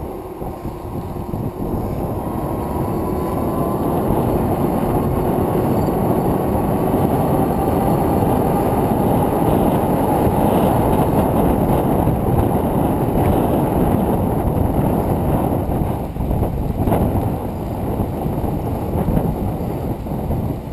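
Steady wind rush over the microphone and tyre rolling noise from a bicycle moving fast along a paved trail. A faint whine rises slowly in pitch over the first several seconds.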